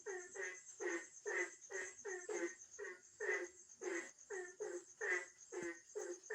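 Frogs croaking in quick succession, about two to three short calls a second, each dropping in pitch at its end. A steady, high, pulsing trill runs behind them.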